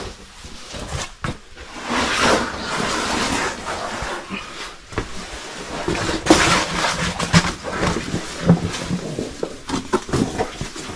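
A person breathing hard and grunting with effort while clambering over rock, with boots and gear scuffing and knocking on the stone.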